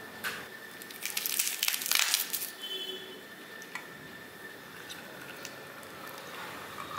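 Crackly rustling of fresh coriander and green chillies being handled and pressed into a steel mixer-grinder jar, loudest for about a second and a half near the start, followed by a few light clicks.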